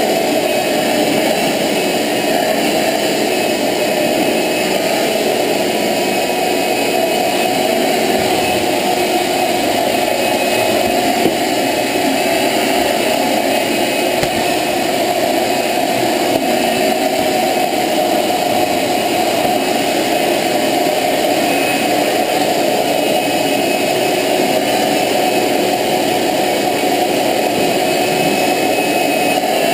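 Shop-Vac wet/dry shop vacuum running steadily, a constant loud whine from its motor with air rushing through the hose.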